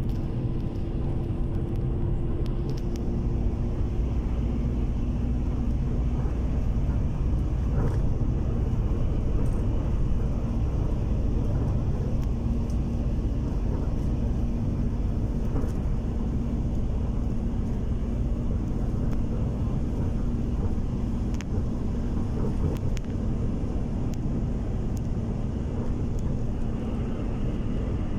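Steady low rumble of a road vehicle driving along at speed, heard from inside the cabin through the window glass.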